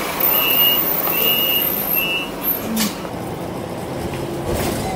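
City bus door warning beeper sounding three short high beeps in the first two seconds or so, over the bus's steady running noise. A short pneumatic hiss follows about three seconds in, and another near the end.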